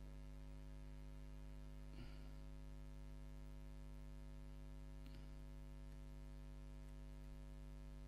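Faint steady electrical hum with a buzz of many overtones, unchanging throughout, with two faint brief sounds about two and five seconds in.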